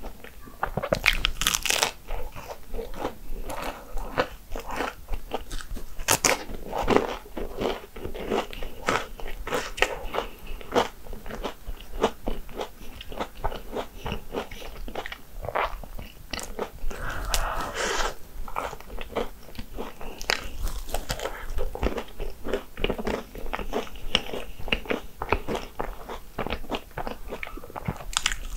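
Hong Kong egg waffles being bitten and chewed: a dense run of crisp crunches and chewing clicks.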